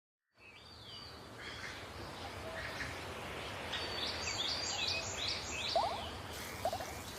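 Birds chirping over a steady outdoor ambience that fades in over the first second. A cluster of quick, downward-gliding chirps comes about four to six seconds in, with two short rapid trills near the end.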